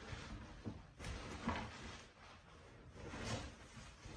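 A large cardboard box being handled, its flaps scraping and rustling in a few short bursts, about a second and a half in and again about three seconds in.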